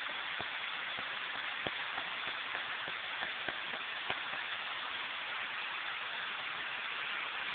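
Steady rushing of a waterfall, with scattered sharp ticks during the first four seconds or so.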